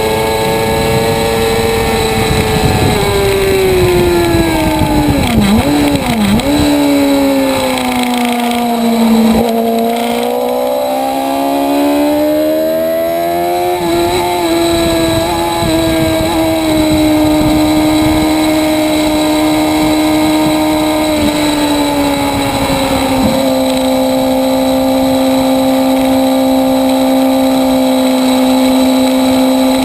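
Motorcycle engine heard onboard at speed, over wind rush. Its pitch falls under braking with two quick dips a few seconds in, like downshifts, then climbs again as it accelerates and holds steady from about three quarters of the way through.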